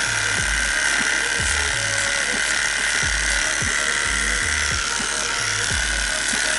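Electric hair clipper buzzing steadily as it cuts hair over a comb, with background music keeping a steady beat about once a second.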